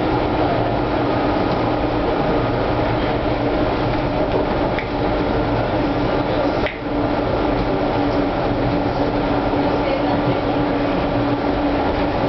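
Interior running noise of a Hawker-Siddeley H5 subway car moving at speed: a steady rumble of wheels on rail with a steady hum over it. About two thirds of the way through, the noise dips for a moment.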